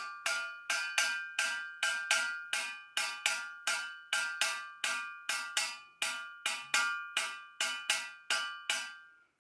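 Stainless steel saucepan struck on its base with a wooden spoon shaped like a drumstick, played as a repeating percussion rhythm of sharp, ringing metallic hits, about two to three a second. The playing stops shortly before the end, the last hit ringing out.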